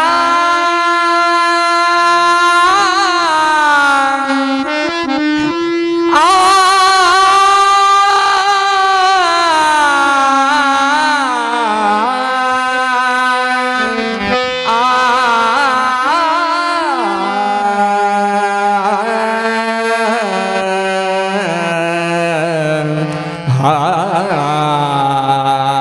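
Solo voice singing a devotional kirtan melody into a microphone, in long held, ornamented notes that waver and slide in pitch, with brief breaths between phrases.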